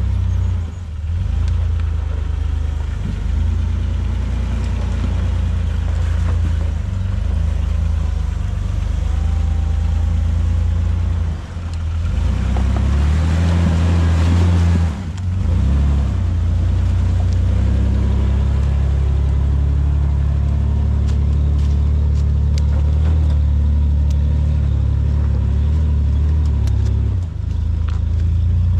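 Jeep Wrangler TJ/LJ engine running steadily at low trail speed, a low steady hum, with a brief surge in revs about twelve to fifteen seconds in.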